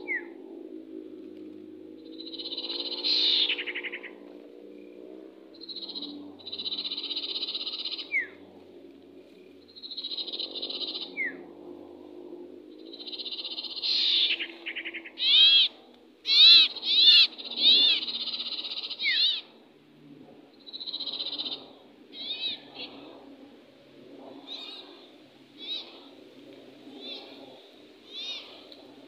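Small birds calling again and again, with buzzy trilled phrases and sharp arched chirps, busiest about halfway through. Under them runs a low, steady, wavering hum.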